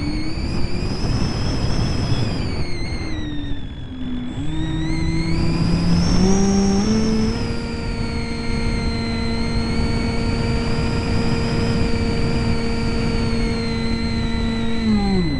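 Brushless electric motor and propeller of an EasyStar RC plane whining as heard from on board, over a constant rush of airflow. The pitch rises and falls in the first few seconds, steps up several times as throttle is added, holds steady, then drops sharply near the end as the throttle is cut.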